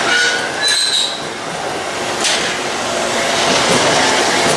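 Train moving on the rails, with steady wheel-and-rail noise and brief high-pitched wheel squeals at the start and again about a second in.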